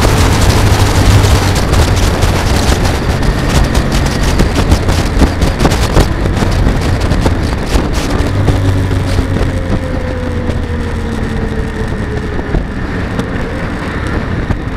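Kawasaki W650 air-cooled parallel-twin motorcycle engine running under way, with wind rushing over the microphone. Past the middle the engine note falls slowly in pitch and the wind eases as the bike slows down.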